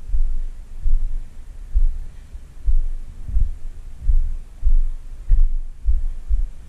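Footsteps walking on the log deck of an old wooden bridge, heard as dull low thuds carried through a body-worn camera, about three every two seconds.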